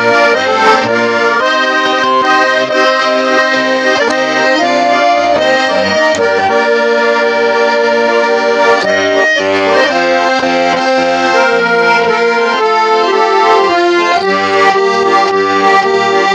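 Accordion playing an instrumental interlude: a melody of sustained reedy chords over a steady rhythm of short alternating bass notes.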